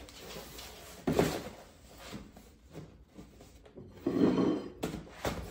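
Cardboard shoe box being handled on a wooden table: a knock about a second in, light handling noise, then a longer scraping rub about four seconds in.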